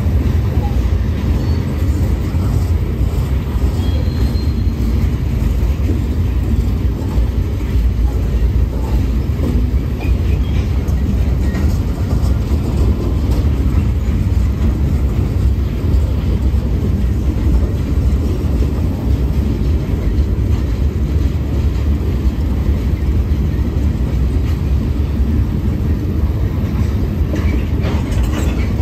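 Freight train of hopper cars rolling past at close range: a steady, loud low rumble of steel wheels on the rails, with a brief faint wheel squeal about four seconds in.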